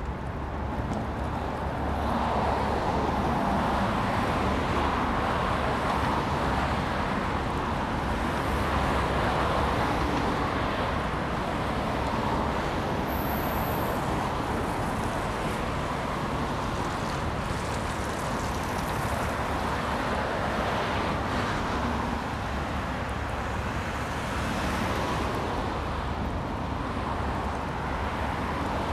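Road traffic: a steady hiss of passing cars with a low rumble underneath, swelling and easing in slow waves as vehicles go by.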